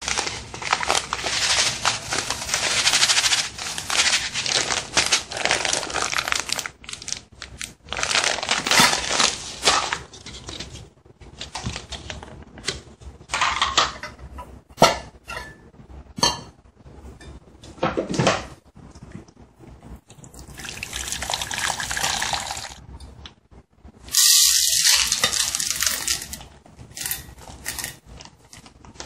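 Kitchen preparation noises: water running in bursts, sharp clinks of stainless steel bowls being handled, and near the end a plastic bag rustling as chocolate chips pour into a steel bowl.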